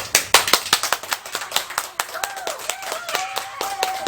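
A small group clapping, quick sharp claps several a second, with a high-pitched cheer joining in about halfway through and held.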